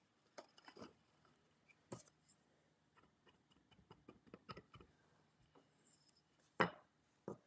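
Faint handling sounds of tapestry weaving on a Mirrix loom: scattered light clicks and taps as weft yarn is worked through the warp and a wooden bobbin is handled. Two sharper knocks come near the end.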